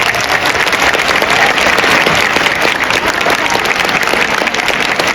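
Large stadium crowd clapping and cheering, a dense steady wash of many hands.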